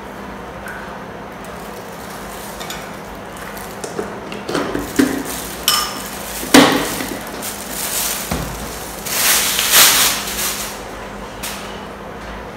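Spoon clinking and scraping against a ceramic plate and serving containers as fried shallots are spooned onto the sticky rice: several sharp knocks in the middle, then a couple of seconds of noisy scraping, over a steady low hum.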